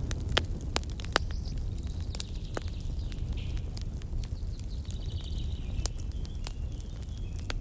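Campfire crackling in sharp, scattered pops over a steady low rumble.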